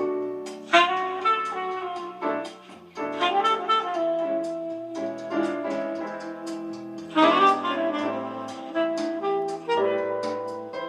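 Jazz with a saxophone carrying the melody over a bass line, played back through a McIntosh MA-5100 integrated amplifier.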